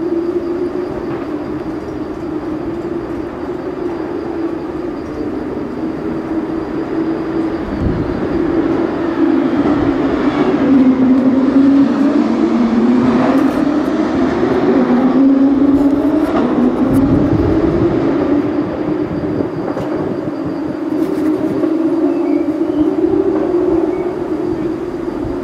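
Recovery truck's engine running steadily, its pitch wavering slowly up and down and swelling louder for several seconds in the middle.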